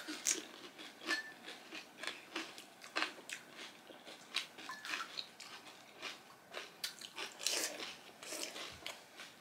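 Chewing and crunching of crisp panipuri shells filled with spiced water, as short irregular crunches and clicks.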